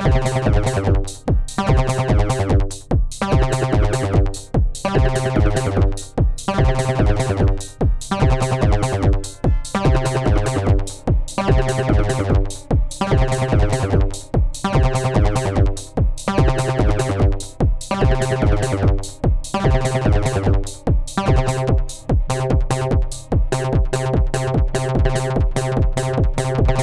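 Electronic music from an Elektron Syntakt drum machine and synthesizer: a steady, fast drum-machine beat over a held bass line and repeating synth chords.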